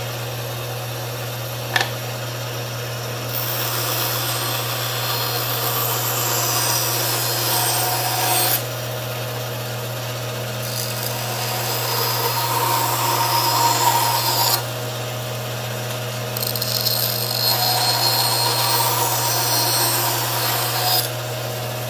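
Band saw running with a steady motor hum, cutting a small wooden triangle on a bevel in three separate passes of a few seconds each, the blade noise rising during each cut and falling back to the hum between them. A single sharp knock about two seconds in.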